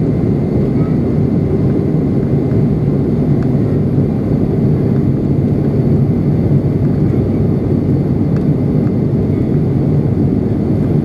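Steady, loud drone of an ATR 72-600's Pratt & Whitney PW127 turboprop and its propeller, heard inside the passenger cabin, with a constant low hum under the noise.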